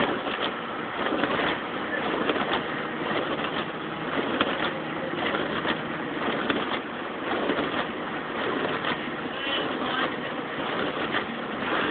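Winter storm wind blowing, a rough, gusting rush of noise that rises and falls.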